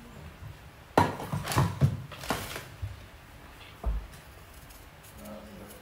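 Kitchen handling noise while potatoes are peeled by hand with a knife: a quick run of knocks and clatter about a second in, then a single dull thump about four seconds in.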